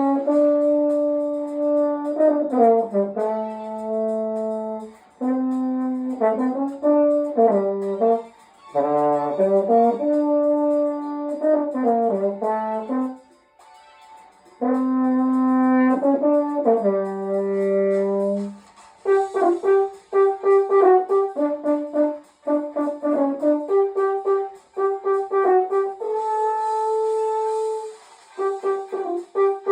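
Unaccompanied French horn playing a melody in phrases, mixing held notes with quick runs. After a short pause about halfway through, the playing turns to shorter, detached notes.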